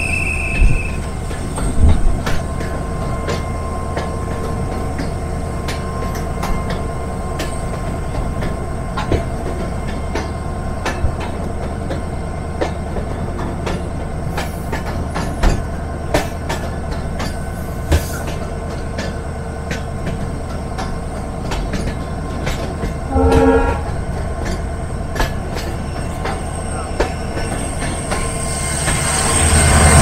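Passenger train running on the ghat line, heard from the coach: a steady rumble with irregular clicks of the wheels over rail joints and a thin steady wheel squeal. A brief horn toot sounds about two-thirds of the way through. Near the end the noise swells sharply as the train runs into a tunnel.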